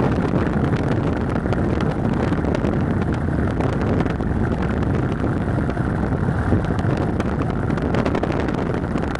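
Steady wind noise buffeting the microphone, over a low rumble from a moving vehicle.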